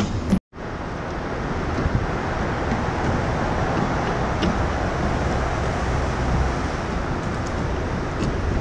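Steady city traffic noise mixed with wind on the microphone, cutting out for a moment about half a second in.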